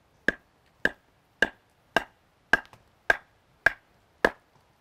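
Batoning: a knife's spine struck over and over with a baton to drive the blade down through a stick of fresh green wood, splitting it. Sharp, evenly spaced knocks, about two a second.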